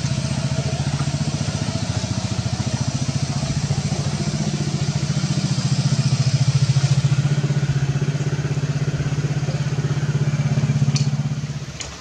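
Kite hummer on a large kite in flight, buzzing with a steady low drone that pulses rapidly; it swells a little midway and stops just before the end.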